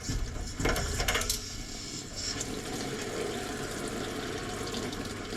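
Water rushing through central heating pipework and valves, a steady hiss after a few short knocks in the first second, as water is pushed through to clear an airlocked radiator.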